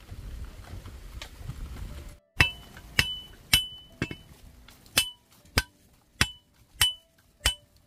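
Nine sharp hammer strikes, about one every half second, each with a short bright ring. They begin about two seconds in, after a low rumble.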